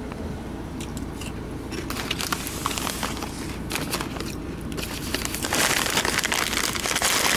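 Shiny plastic crisp bag crinkling as it is handled and turned over: scattered crackles that thicken into a dense, louder crinkle in the last couple of seconds.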